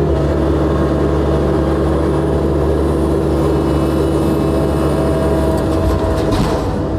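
Excavator's diesel engine running steadily at working speed, with a few faint knocks near the end.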